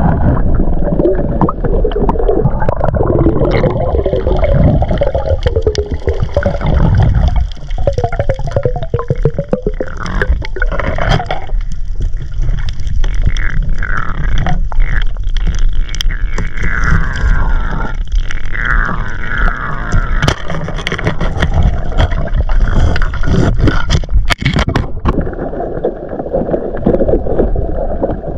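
Muffled underwater sound of a submerged action camera on a reef dive: water rushing and gurgling, with scattered sharp clicks.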